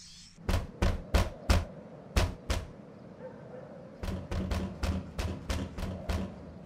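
A hand knocking on a door in two rounds: about six knocks over two seconds, then after a pause a quicker round of about nine knocks.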